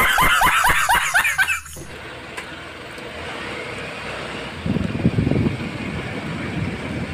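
A man's loud, rapid laughter, a quick run of falling 'ha-ha-ha' bursts that cuts off abruptly after about two seconds, followed by quieter background noise.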